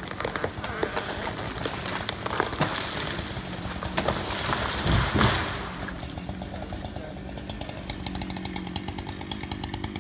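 Chainsaw idling throughout, with sharp cracks of wood in the first few seconds, then a large tree falling: a loud rushing crash of trunk and branches about four to five seconds in. After the fall the saw keeps idling with a rapid, even ticking.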